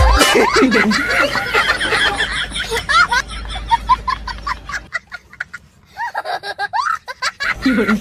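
A crowd of people laughing and chattering, with short bursts of giggles and snickers. The voices drop briefly about five seconds in.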